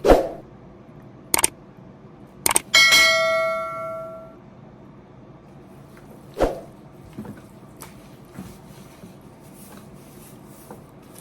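Metal kitchenware being knocked and set down: a few sharp clinks, one of which rings on as a clear tone for about a second and a half. A duller knock comes later, then a few light clicks.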